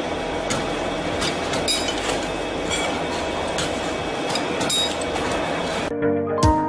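Steady workshop machine noise from a tube-bending machine, with irregular sharp metallic clinks of steel tubes being handled and bent. About six seconds in it cuts abruptly to background music.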